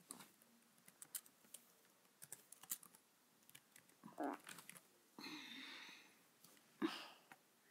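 Laptop keyboard being typed on: faint, scattered keystroke clicks. About four seconds in there is a brief louder sound, then a soft rushing noise for about a second, and a sharp knock near the end, which is the loudest thing.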